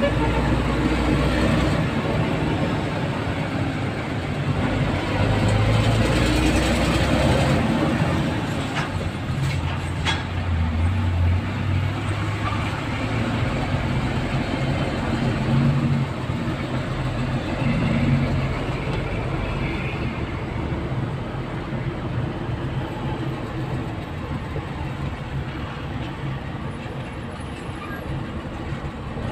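Vehicle engine and heavy-traffic rumble heard from inside the cab of a vehicle creeping along in a traffic jam. It is a steady low drone whose engine note shifts now and then, with a couple of faint clicks about nine to ten seconds in.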